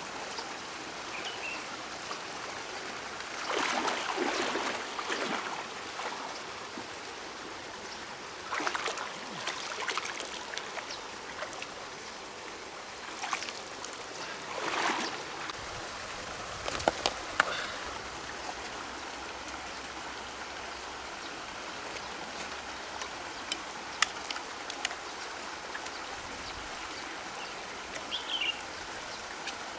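River water running, with several splashing, sloshing swells a few seconds apart and a few sharp clicks. A high, steady whine stops about five seconds in.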